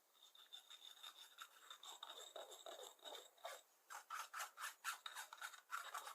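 Faint, quick, irregular scraping strokes of a spoon working ground black seed against a mesh strainer to strain boiled milk, with a short lull about two-thirds through.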